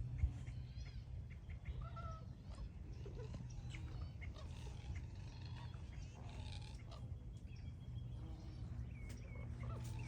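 Wild birds calling: many short chirps and squawks overlapping, over a steady low hum.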